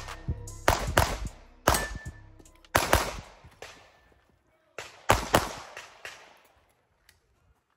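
Pistol shots fired in quick strings: about nine shots in pairs and threes, with pauses of a second or more between strings. Each shot trails off in a short echo.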